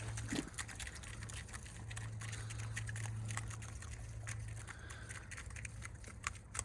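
Chickens pecking, making scattered light clicks over a steady low hum.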